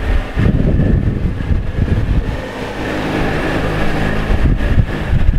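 Boat engine running under way, under a low uneven rumble of wind and water; a steady engine hum comes through more clearly about halfway through.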